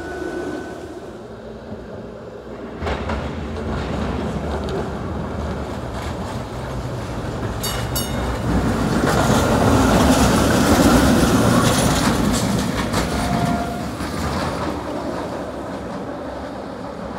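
SEPTA Kawasaki light-rail trolley car running along street track, wheels rumbling and clattering on the rails, loudest about ten seconds in as it passes close.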